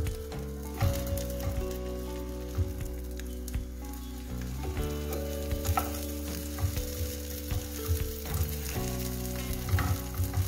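Egg omelet with tofu and tuna sizzling in a nonstick frying pan, with irregular clicks and scrapes as a wooden spatula and a slotted turner push and roll it against the pan.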